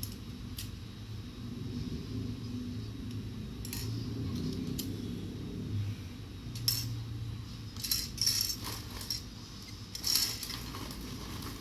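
Small hard objects clicking and clattering against each other as they are handled and unpacked, with a few sparse clicks at first and busier bursts of clatter in the second half.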